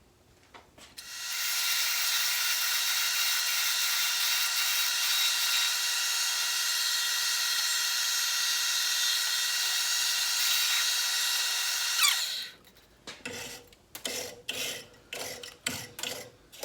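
Metal lathe drilling the final 5/16-inch hole through a small metal coupler: a steady, high, whining cut with many fixed tones. It runs for about eleven seconds and cuts off about twelve seconds in. Scattered clicks and knocks follow.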